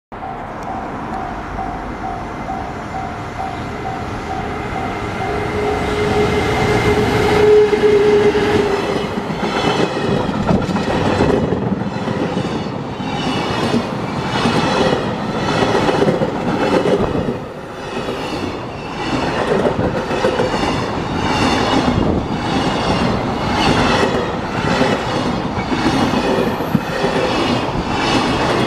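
A level-crossing alarm rings in a steady repeating ding, about two or three strikes a second. Then an EF210 electric locomotive passes with a steady hum that peaks about seven to eight seconds in. Freight wagons follow, rumbling past with a regular clickety-clack of wheels over rail joints.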